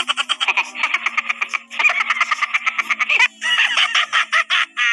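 Comic sound effect of rapid, high-pitched giggle-like chattering in quick pulses, broken by short pauses.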